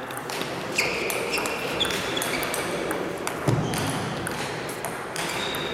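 Table tennis ball clicking off paddles and table in a rally, with more ball clicks from other tables around it and a few short high-pitched squeaks.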